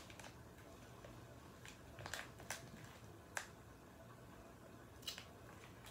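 Near silence, broken by about half a dozen faint, scattered clicks.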